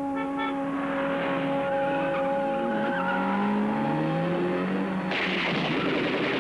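Film soundtrack car chase: a held music chord gives way to car engines revving up, then about five seconds in a loud screech of skidding tyres.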